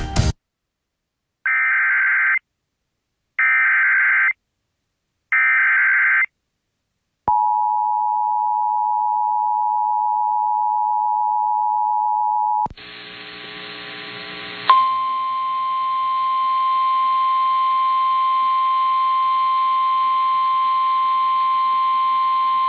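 Emergency Alert System tones: three bursts of SAME header data, about a second each, then the two-tone attention signal held for about five seconds. Then a radio feed with hiss cuts in, and about two seconds later a single steady alert tone starts over the hiss.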